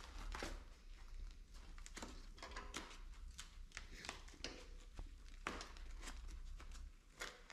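Ratcheting socket wrench tightening a front axle nut: faint, irregular clicks as the ratchet is swung back and forth.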